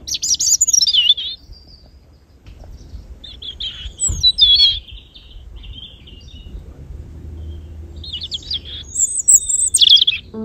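European robin singing: three separate bursts of high, warbling, trilling song with short pauses between them.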